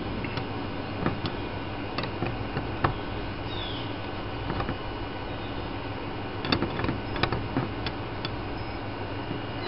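Scattered light clicks of a screwdriver tip levering at the plastic connector clip on a coolant temperature sensor, a few in the first three seconds and a cluster after about six and a half seconds, over a steady low hum.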